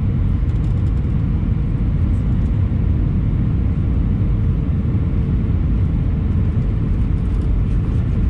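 Steady, loud rumble from inside a moving vehicle, with a faint steady hum running through it.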